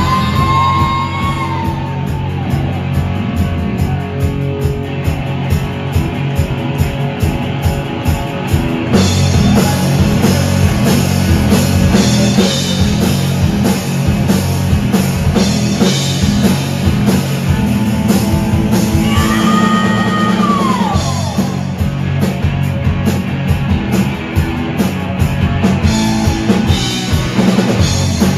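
Live rock band playing loud: electric guitars and drum kit, with high sliding notes near the start and again about two-thirds of the way through.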